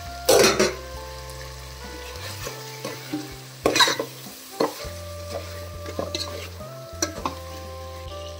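A metal spoon stirring chicken pieces in masala in an aluminium pot, scraping against the pot's side and bottom in several loud strokes, the loudest right at the start and just before four seconds in, over the sizzle of the masala frying.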